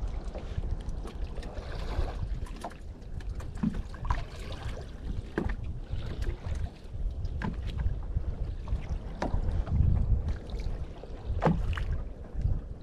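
Wind rumbling on the microphone and water lapping against a small boat at sea, with scattered faint clicks and knocks.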